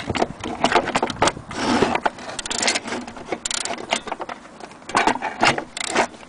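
Irregular clicks, knocks and short scrapes as a vintage wall clock's dial and movement are handled and turned by hand.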